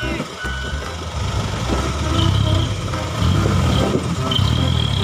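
Engine of a loaded Isuzu light truck labouring through deep mud, its pitch rising and falling as the driver works the throttle. A thin high whine joins it about two seconds in.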